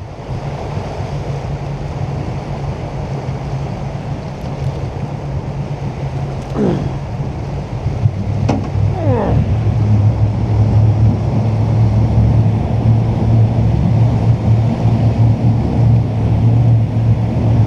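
Jet boat engine running steadily over water and wind noise; about eight seconds in its note drops and grows louder, as if throttled up.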